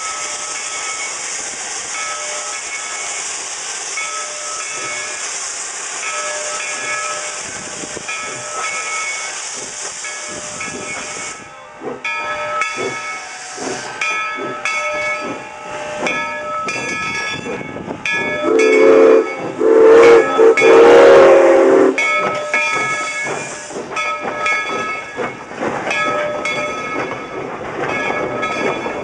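Steam locomotive No. 97, a 2-8-0 Consolidation, hissing steam steadily; the hiss stops about eleven seconds in and the engine chuffs and clanks as it moves past. Its steam whistle then blows loudly for about three and a half seconds, broken into short blasts.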